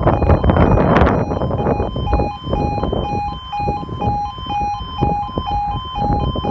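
Level crossing warning alarm sounding, a two-tone electronic alarm alternating evenly between a lower and a higher note about twice a second. A rush of noise on the microphone covers it over the first two seconds.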